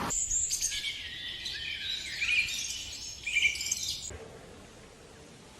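Small songbird chirping and trilling in quick high-pitched phrases, which stop abruptly about four seconds in.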